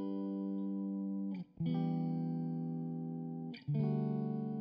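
Background music: slow held chords, a new chord struck about every two seconds.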